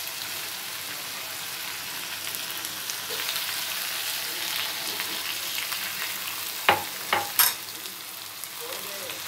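Beef and cauliflower frying in oil and a spice masala gone very dry, a steady sizzling hiss in the pan. About two-thirds through come three sharp knocks in quick succession.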